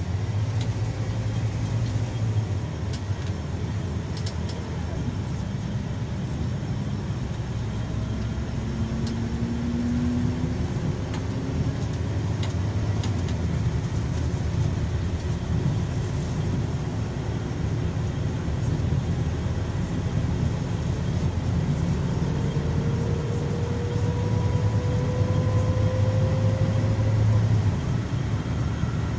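Scania K340EB coach running on the road, heard from inside the passenger cabin: a steady low drone of engine and road noise. Twice a faint whine rises in pitch as the coach picks up speed, about a third of the way in and again near the end.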